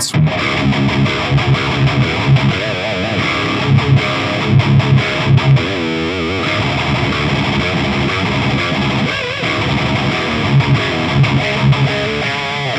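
High-gain distorted electric guitar played through an Orange Rockerverb 100 MKIII valve amp head, with an MXR 10-band EQ pedal in front pushing the preamp: metal riffing with repeated low chugs and, about halfway, notes with wavering vibrato. The attack has a zingy string-and-pick edge.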